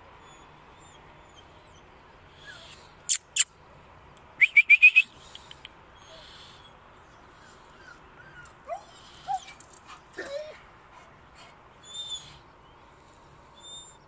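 A young chained wolfhound whining in short, high, rising cries, with a quick run of five loud ones about four and a half seconds in and softer whines a few seconds later. Two sharp clicks come just before the run, and faint high chirps are heard near the end.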